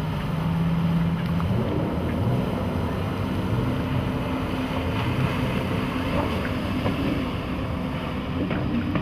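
Suzuki 300 hp four-stroke outboard running at speed on a center-console boat underway, with wind noise on the microphone. Its steady tone steps higher about a second and a half in.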